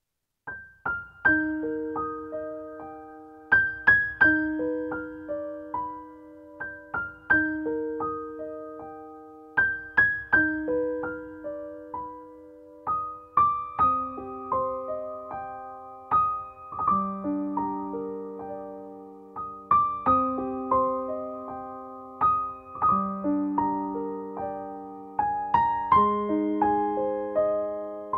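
Gentle background music on piano: single notes struck and left to ring in a slow, repeating arpeggio-like melody, starting about half a second in.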